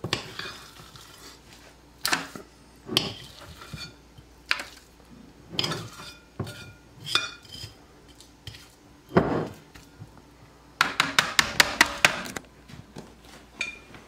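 Spoon scraping and knocking against a mixing bowl as thick brownie batter is scooped out into a pan: separate knocks every second or so, then a quick run of about a dozen sharp taps a little before the end.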